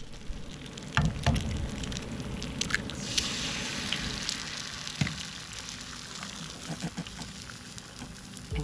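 Eggs frying in a skillet on a portable propane camp stove, a steady sizzle. A few light knocks come about a second in and again near five seconds.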